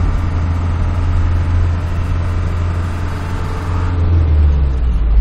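Car driving at road speed, heard from inside the cabin: a steady low engine drone under tyre and wind noise. The drone drops in pitch about four seconds in.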